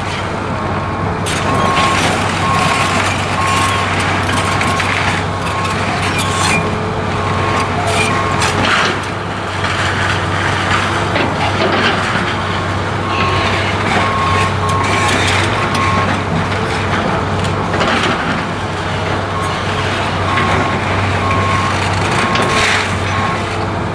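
Heavy demolition machine with its diesel engine running steadily and a backup alarm beeping over and over, while the timbers of an old wooden building crack and crash as they are torn down.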